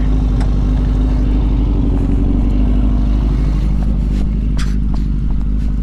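Suzuki motorcycle engine idling steadily at a standstill, a low, even running sound.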